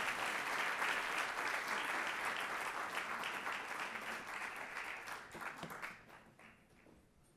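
Audience applauding, a dense stretch of many clapping hands that thins to a few scattered claps and dies away about six seconds in.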